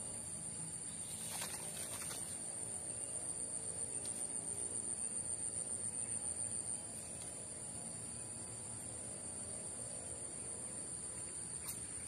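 Steady high-pitched insect chorus, with two faint clicks about a second and a half and two seconds in.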